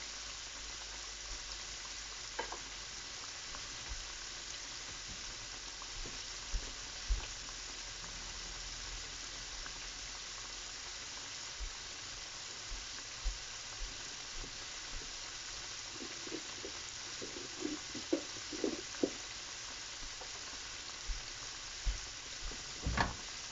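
Flour-coated chicken pieces shallow-frying in hot oil in a pan: a steady sizzle with scattered pops and crackles.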